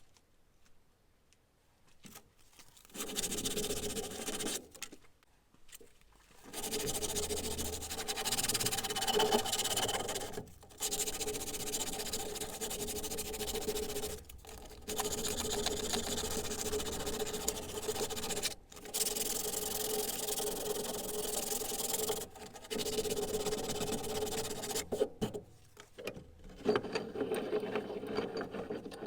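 A small electric power tool running in repeated runs of two to four seconds with short stops between, its motor giving a steady hum under the grinding or sanding noise of the work.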